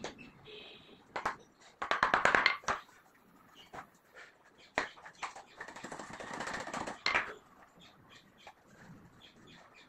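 Clattering and knocking of a wooden box being handled on a workbench: a quick run of clicks about two seconds in, a single sharp knock near five seconds, and more clatter around six to seven seconds.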